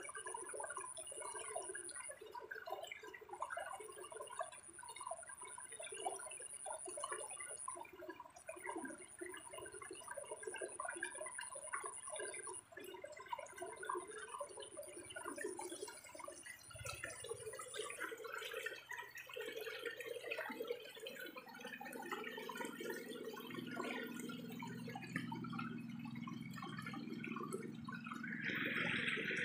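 Water sloshing and dripping in many small splashes, with a high steady buzz in long stretches with short gaps that stops about two-thirds of the way through; a low hum comes in near the end.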